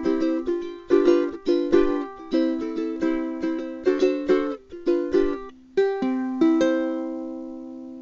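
Upbeat intro theme music on a plucked string instrument: quick, bouncy notes, then a final chord about six and a half seconds in that rings on and slowly fades.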